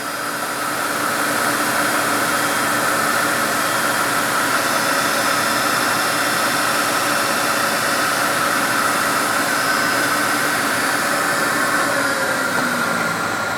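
Sharp VH3 milling machine's knee power feed running: a steady whine and hum from the feed motor and gearbox that builds over the first second or so, with its pitch starting to fall near the end.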